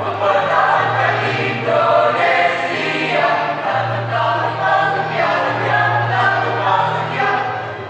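A school choir singing an Indonesian patriotic song in several parts, with long held low notes underneath the upper voices.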